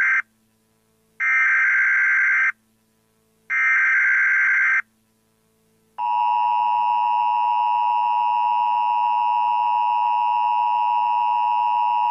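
Emergency Alert System broadcast tones: the end of one burst of screechy digital SAME header data, then two more bursts, each about a second long with short silent gaps. About six seconds in, the steady two-tone EAS attention signal starts and holds.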